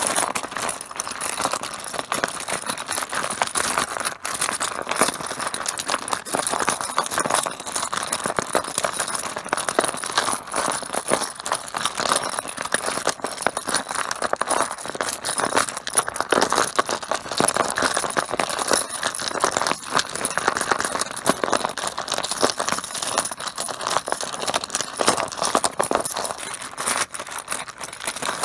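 Mahjong tiles clattering against one another in a dense, continuous stream of clicks and clacks.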